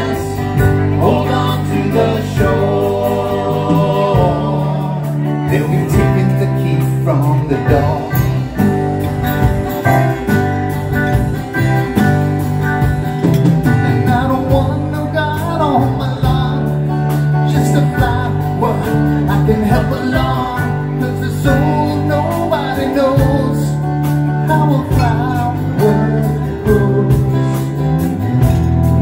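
A live band plays a folk-rock song on acoustic guitars, bass guitar, drum kit and keyboards, with singing over the top.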